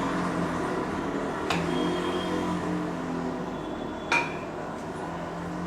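Kitchen utensils handled while measuring out corn flour: a sharp click about a second and a half in and a louder ringing metal clink about four seconds in, over a steady low hum.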